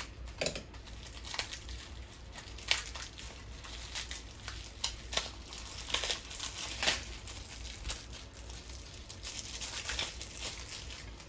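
Packaging wrap crinkling and rustling by hand in short irregular crackles as a small ceramic coaster is unwrapped.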